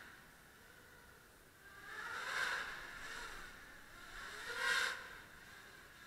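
250-size quadcopter drone flying, its motors and propellers whining and gliding up and down in pitch, swelling loudest twice, about two and a half seconds in and just before five seconds in.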